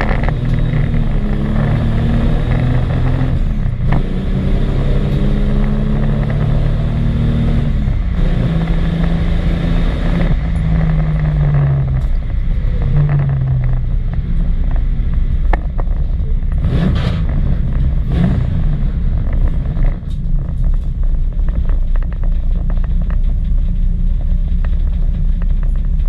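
On-board sound of a Jaguar XJ6 4.2's straight-six engine. For the first dozen seconds or so its note rises and falls with throttle and gear changes, then it settles into a steady low rumble with a couple of brief knocks.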